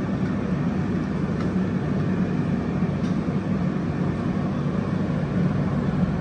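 Steady low mechanical drone of a commercial kitchen's fans and equipment, with no change in level.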